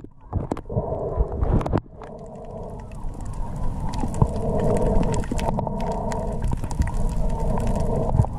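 Boat engine and propeller heard underwater: a steady drone with a faint warble that sets in about a second in, over a low rumble and scattered sharp clicks.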